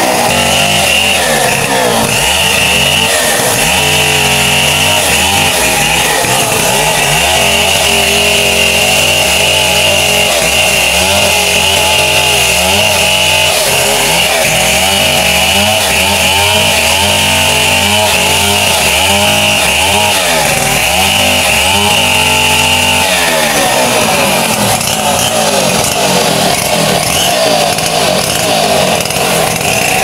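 Gasoline chainsaw running under load, its engine note rising and falling as the chain cuts through a coconut palm log.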